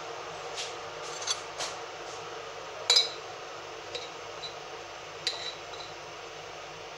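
Metal spoon clicking and clinking against a glass honey jar: several light clicks, the loudest a ringing clink about three seconds in and another a little after five seconds. A steady hiss runs underneath.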